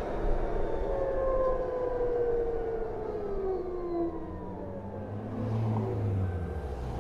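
BMW CE 04 electric scooter's motor whining over road noise, its pitch falling steadily for a few seconds as the scooter slows. A low rumble swells near the end.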